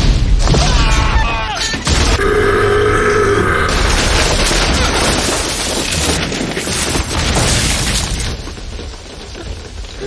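Film action sound effects: a heavy boom in the first second and a half with wavering high cries over it, then a long pitched bellow lasting about a second and a half, then a noisy rumble that fades near the end.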